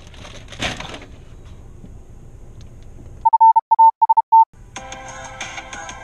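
A loud, pure steady beep of the TV colour-bar test tone, chopped into about six short pulses over roughly a second, used as a glitch-style transition. Electronic music starts right after it.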